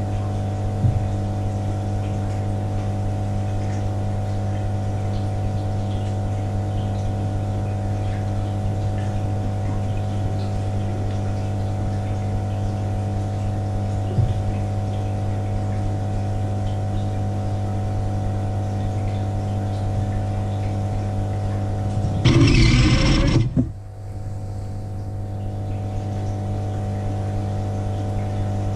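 Steady motor hum of an aquarium water pump circulating a tank. A couple of faint knocks come early and midway. A loud rushing burst lasts about a second and a half near the end, after which the hum drops briefly and then builds back up.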